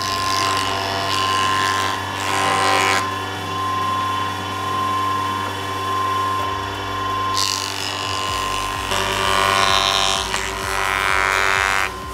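Power tool motor running steadily, working wood with three bursts of cutting or sanding noise: near the start, around the middle, and near the end.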